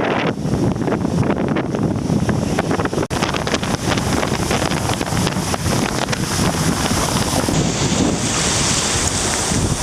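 Strong typhoon wind buffeting the microphone over rushing sea water, a dense fluttering noise with a brighter hiss near the end.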